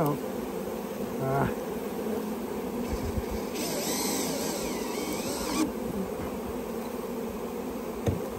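Many honeybees buzzing in a steady, dense hum as a package of bees is installed into a hive. A higher hiss rises over it for a couple of seconds about halfway through.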